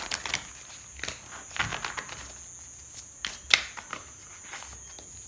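Tarot cards being handled: irregular snaps and taps as cards are drawn, flipped and laid down, the sharpest about three and a half seconds in.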